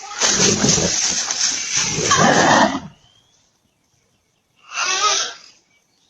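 A bear roaring, a rough, loud call lasting about three seconds, followed after a pause by a short, higher, wavering animal call about five seconds in.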